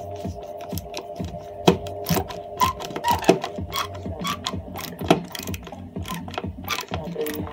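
Screwdriver driving screws to fix a tweeter into a speaker cabinet: irregular ratchet-like clicks and scrapes, with a few sharper knocks.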